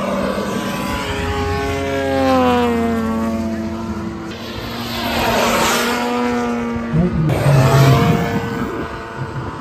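Radio-controlled model aircraft engine and propeller flying past, its pitch falling as it goes by about two seconds in, with a second pass near the middle.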